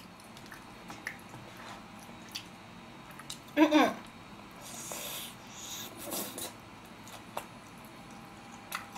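Quiet eating sounds: chopsticks clicking, then a bite into a piece of tangsuyuk (battered sweet-and-sour fried pork) and chewing. A short vocal sound with falling pitch comes about three and a half seconds in.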